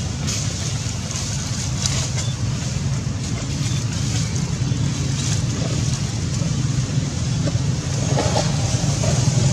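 A steady low hum, like an engine running, with light crackles over it.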